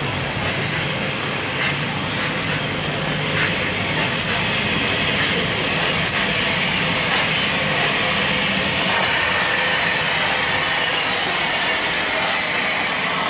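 Bulleid West Country class steam locomotive 34007 Wadebridge drifting slowly into a station. Light regular clicks come about once a second at first, then steam hiss grows louder as the engine draws alongside.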